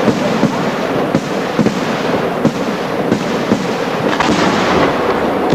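A fireworks barrage: aerial shells bursting overhead in a dense, unbroken run of rapid bangs and crackle, with no pause.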